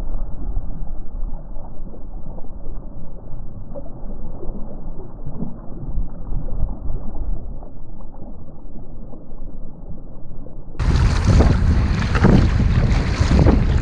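Wind and water noise on a kayak's camera microphone, muffled and steady. About three seconds before the end it cuts to louder, gusting wind buffeting the microphone.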